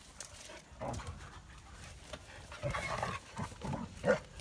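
Dogs milling about close by and panting, with a short louder sound a little after four seconds in.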